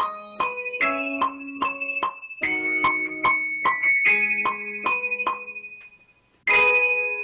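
Keyboard music in a piano or electric-piano sound, a run of struck notes and chords at an even pace. It cuts out about six seconds in, then comes back with a loud chord.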